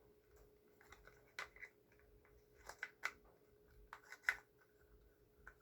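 Faint, scattered clicks and taps of product packaging being handled, a handful of sharp ones spread irregularly over a few seconds, over a low steady hum.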